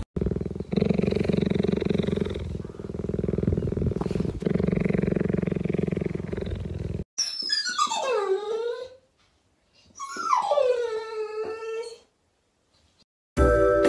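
Cheetah purring steadily for about seven seconds, swelling and easing as it breathes. Then a pit bull-type dog gives two long whines, each falling steeply from high to low.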